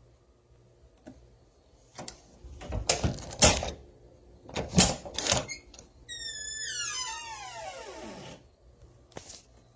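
Old door being handled: a string of latch clicks and knocks, then a long hinge creak that slides steadily down in pitch over about two seconds, followed by a single click near the end.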